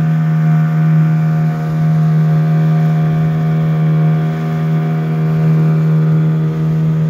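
Boat outboard motor running at a steady speed while under way, one constant unchanging drone.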